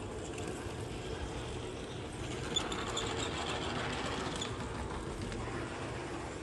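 G-scale model logging train rolling along the track: a steady rumble and clatter of wheels on rail, with a run of high ticks about two to four seconds in.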